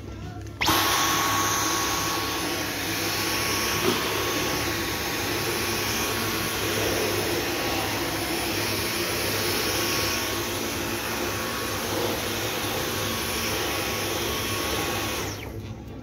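Dyson cordless stick vacuum switching on abruptly about half a second in and running at a steady whine with a faint high tone, its floor head pushed over a floor mat. There is a light knock about four seconds in, and the motor cuts off about a second before the end.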